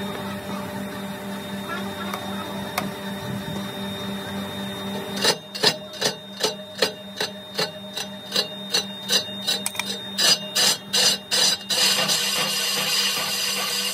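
Metal lathe running with a steady hum as it turns a cast-iron brake drum. About five seconds in, a regular beat of sharp knocks starts, about three a second, and becomes the loudest sound, then stops near the end.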